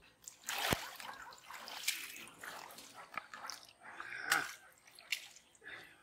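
Shallow pond water splashing and dripping as hands work in it, with three sharp clicks, the loudest under a second in and another just after four seconds.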